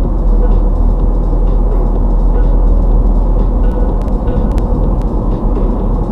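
Steady low rumble of road and engine noise inside a moving car's cabin, with a few faint clicks about four seconds in.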